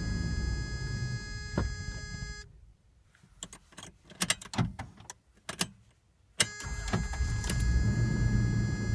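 1995 Toyota 4Runner engine running, then dying away about two seconds in. A few seconds of scattered clicks follow, and then it catches again abruptly and runs. This fits a truck that will not stay idling.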